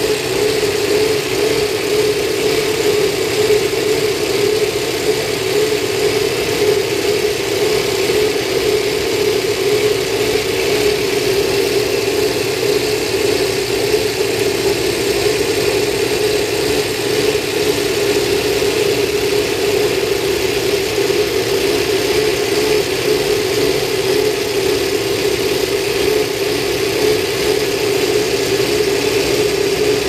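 Ford Cosworth V8 racing engine of a Lola LC88 Formula One car idling steadily, heard close up at the open engine bay, with an even, unchanging note and no revving.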